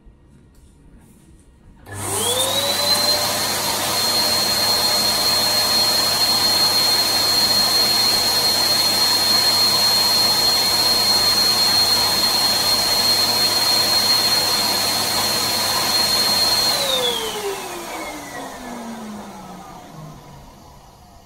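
Electric balloon pump switched on about two seconds in, its motor whine climbing quickly to a steady pitch over a loud rush of air as it inflates a 12-inch crystal latex balloon. About three-quarters of the way through it is switched off, and the whine falls away over a few seconds as the motor spins down.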